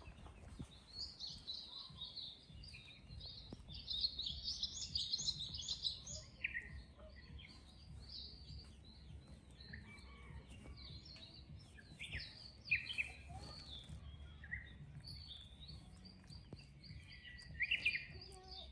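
Small birds chirping and twittering, with a dense flurry of chirps about four to six seconds in and a few louder calls near the end, over a faint low hum.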